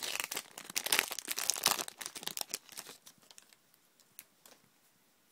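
Foil Pokémon booster pack wrapper crinkling and tearing as it is opened, for about three seconds, then only a few faint ticks.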